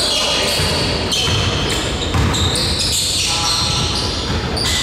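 Basketball game play on an indoor court: the ball bouncing as it is dribbled, with repeated short high-pitched squeaks, typical of sneakers on the hardwood floor.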